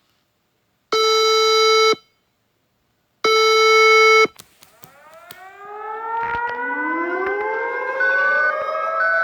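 Mock emergency-alert alarm: two harsh, buzzy electronic tone blasts about a second each, then several siren tones winding up in pitch together, like a civil defense siren, and holding steady, with short beeps over them near the end.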